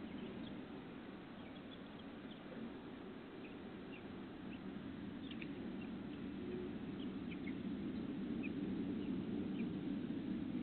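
Faint, short bird chirps scattered over a steady low hiss and rumble, picked up by a Ring security camera's microphone. The rumble grows louder over the last few seconds.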